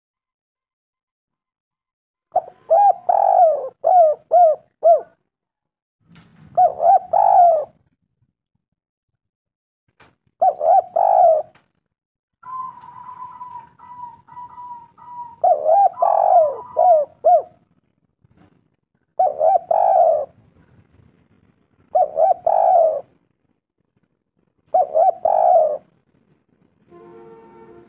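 Spotted dove (tekukur) cooing: about seven separate phrases of a few coos each, with silent gaps between. A faint steady whistle-like tone is heard for a few seconds in the middle.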